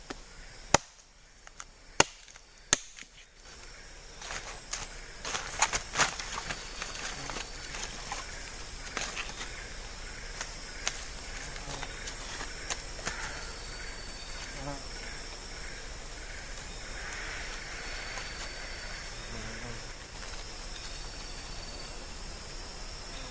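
Three sharp knocks within the first three seconds, then a steady, loud drone of rainforest insects.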